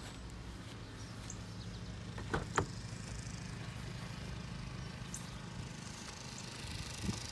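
Car door being opened by hand: two sharp latch clicks a quarter-second apart about two and a half seconds in, over a steady low rumble.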